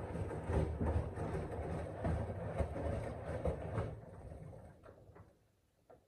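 Washing machine on an 800 rpm spin, the drum rumbling with irregular knocks, then running down and falling quiet about four to five seconds in.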